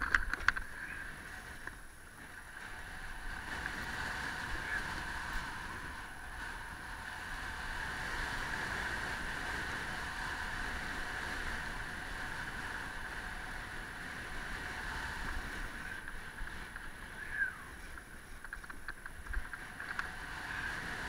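Snowboard sliding fast down a packed, groomed slope: a steady scraping hiss of the board on snow mixed with wind noise on the microphone, with a few sharp clicks just after the start and again near the end.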